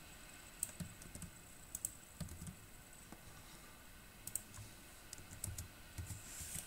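Computer keyboard being typed on: faint, irregular keystrokes in small clusters.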